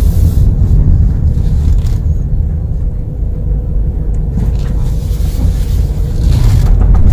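Road and tyre rumble picked up by a microphone taped next to a Honda Amaze's front tyre during a slow right-hand U-turn, with a repeated 'kat kat kat' clicking knock on full lock. The owner puts the noise down to a faulty right-side front drive shaft.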